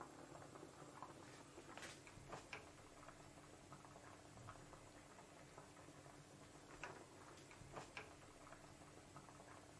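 Faint bubbling of a pan of pasta water at a rolling boil, with scattered light ticks and pops.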